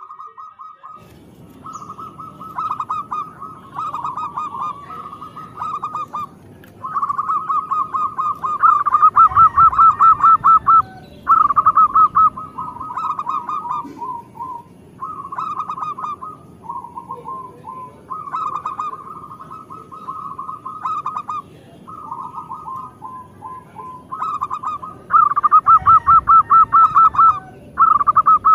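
Zebra dove (perkutut) singing almost without pause: rapid trilled cooing phrases of one to three seconds each, loudest a third of the way in and again near the end.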